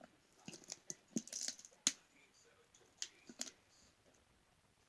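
A scattering of light clicks and taps from small objects being handled, with a quick cluster of them at about one to two seconds, dying away after about three and a half seconds.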